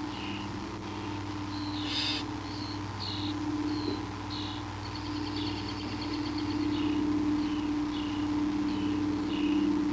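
Short high chirps, irregular and several per second, over a steady low hum, with one longer high note in the middle and a brief hiss-like burst about two seconds in.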